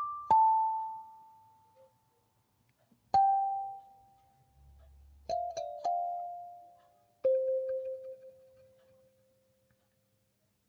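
Sparse music: single struck, bell-like keyboard notes a second or more apart, each ringing out and fading, stepping down in pitch, with the last note left to die away.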